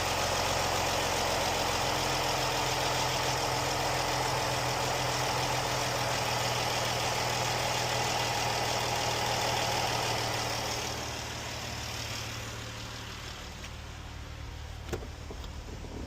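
Jeep engine idling steadily after repair, with no ticking heard. The sound gets quieter about eleven seconds in, and a single short click comes near the end.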